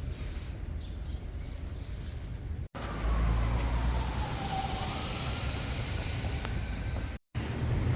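Street traffic noise with a steady low rumble from passing cars. In the middle stretch a distant siren wails, slowly falling and then rising in pitch. The sound cuts out abruptly twice, about three seconds in and again near the end.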